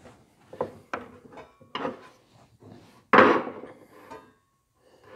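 Metal hand tools knocking and clattering on a table saw's table top as a screwdriver is set down and a steel square is repositioned against the blade. There are several light knocks, and one louder clatter with a short ring about three seconds in.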